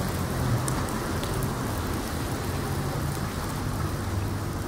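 Steady heavy rain falling, with the low drone of an approaching diesel train's engine underneath.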